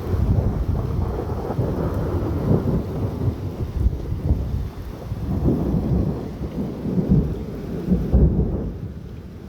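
Thunder rumbling low and unevenly, swelling and fading in waves, with rain falling. The rumble eases a little near the end.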